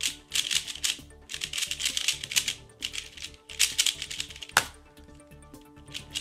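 A 3x3 speed cube being turned fast in a speedsolve, its layers clicking and clattering in quick bursts. A single sharp knock about four and a half seconds in marks the end of the solve, followed by only a few light clicks. Background music runs underneath.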